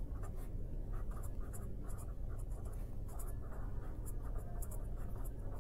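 A pen writing on paper: a run of short, uneven strokes as a line of handwriting is written.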